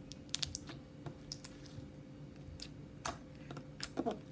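Slime being squeezed and worked by hand, giving off scattered small clicks and pops at an irregular pace.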